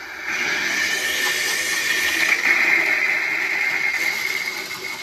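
Water rushing through a slowly opened valve on an air-over-media iron filter in backwash mode: a steady hiss that swells about a third of a second in and eases off near the end.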